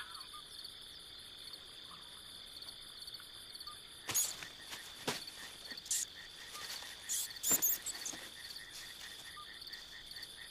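Crickets chirping steadily in a night-time ambience. Several brief rustling crackles come through the middle of it.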